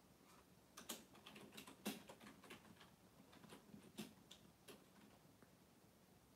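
Domestic cat licking and grooming its paw: a faint run of irregular tongue-and-mouth clicks that starts about a second in and stops a little before the five-second mark.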